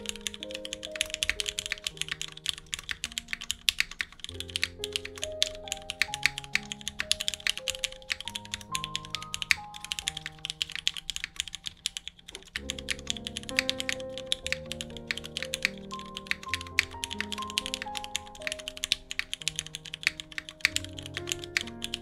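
Fast, continuous typing on an o-ring-mounted 60% custom mechanical keyboard with an aluminium plate, lubed and filmed Cherry MX Black linear switches and GMK keycaps: a dense stream of key clacks. Soft background music plays underneath.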